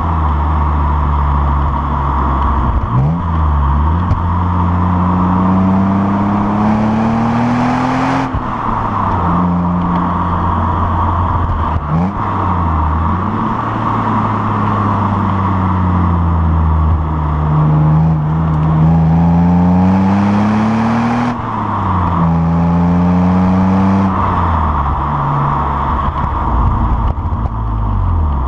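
Exhaust note of a BMW E36 328i's 2.8-litre straight-six through a Supersprint rear muffler, heard right at the tailpipes while driving. The revs climb and fall back at each gear change several times, with steady road and wind noise underneath.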